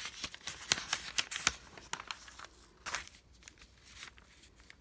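Glossy pages of a newspaper coupon insert being handled and turned, a run of sharp paper crinkles and snaps, busiest in the first three seconds and dying away near the end.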